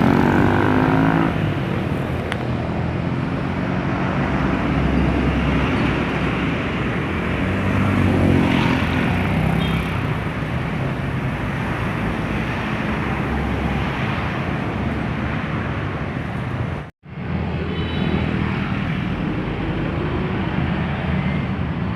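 Steady road traffic: a continuous hum of passing vehicles, with individual engines swelling and fading as they go by near the start and again about eight seconds in. The sound cuts out for a split second about seventeen seconds in.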